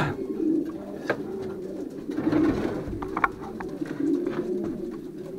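Racing pigeons cooing in their loft, a continuous low, pulsing coo. A few sharp knocks and clicks come through, near the start, about a second in and just after three seconds.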